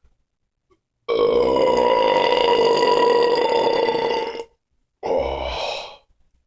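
Two loud belches: a long, steady-pitched belch lasting over three seconds, then a shorter one of about a second.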